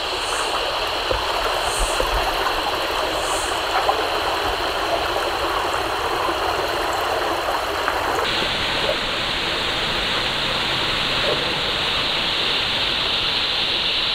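Creek water flowing, a steady rush. About eight seconds in the sound changes abruptly and becomes fuller and deeper.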